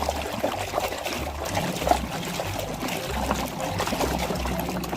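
Water trickling and pouring over toys as they are washed by hand.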